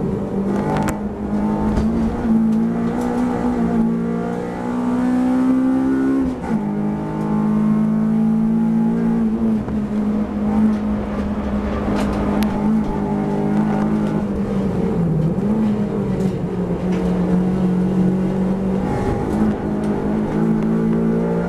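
Honda Civic race car's four-cylinder engine heard from inside the cabin, running hard on track. Its note climbs with speed, drops sharply about six seconds in and dips again later at gear changes and braking, with a few short clicks.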